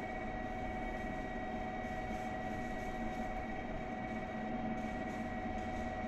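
Steady electric hum in a covered railway station, a few held tones over a low rumble, with no train moving.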